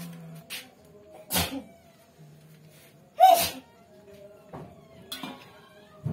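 Domestic cat sneezing twice, about two seconds apart, the second sneeze much louder.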